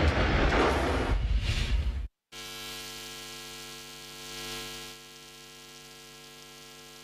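A loud rushing transition sound over the news logo that cuts off about two seconds in. It is followed by a steady electrical mains hum with many even overtones on the amateur video's soundtrack.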